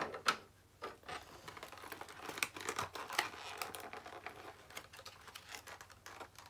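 Small plastic doll accessories being picked and pried out of a moulded plastic packaging tray: irregular light clicks and rustling of the plastic, with one sharper click just after the start.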